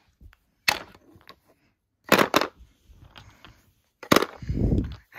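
Sharp clacks of hard plastic toys being knocked down on a surface: a single knock, then two in quick succession, then another. A dull thud follows near the end.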